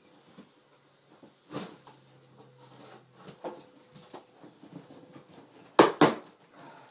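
Cardboard shipping box being handled and its top flaps worked open: scattered rustling and scraping of cardboard, a couple of soft knocks, then two loud sharp cardboard cracks in quick succession near the end.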